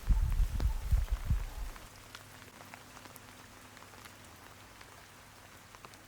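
Rain, with scattered drops ticking sharply. Low rumbling for the first couple of seconds, then only the quieter patter of drops.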